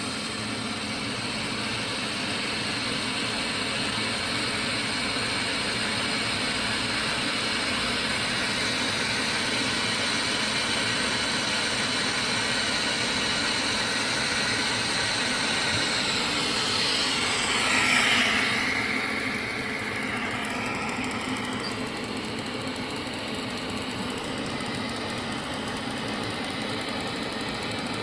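Steady machine noise of an automatic straight seam welder running with wire feed, with a brief louder swell about eighteen seconds in.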